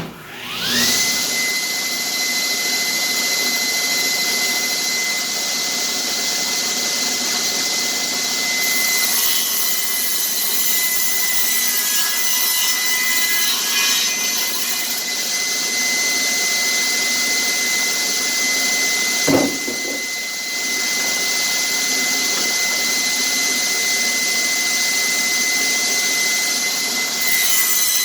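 Electric saw spinning up with a rising whine, then running steadily while cutting the top edge of a glued-up wooden board. A single short knock comes about two-thirds of the way through.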